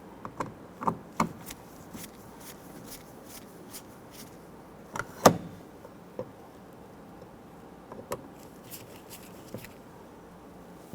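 Scattered light clicks and taps from a screwdriver working the Phillips screws that hold a plastic interior door handle into the door panel, with one louder sharp knock about five seconds in.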